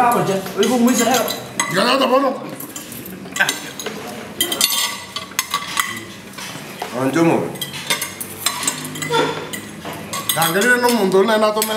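Metal forks clinking and scraping against a plate as chips are eaten, in quick irregular clicks.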